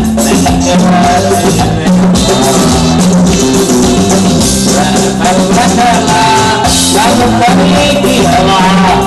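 Loud, upbeat dance music with a steady drum and percussion beat under a melody.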